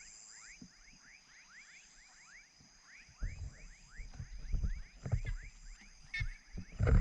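Evening chorus of frogs and crickets: a steady high cricket trill and a pulsing higher band, over a quick run of short falling chirps several times a second. From about three seconds in, low rumbling thumps, likely wind or handling on the microphone, become the loudest sound.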